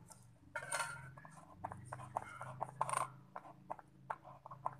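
Slime being squeezed and worked by hand: irregular small wet clicks and crackles, with louder rustling squelches about a second in and again about three seconds in.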